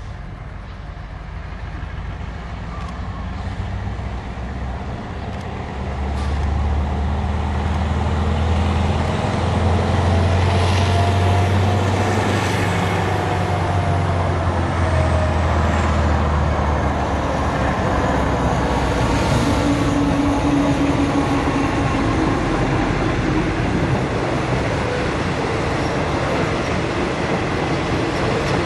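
Alsthom diesel-electric locomotive (SRT ALD class) approaching and passing, its engine drone growing loud about six seconds in. Its passenger coaches then roll past with steady wheel-on-rail noise.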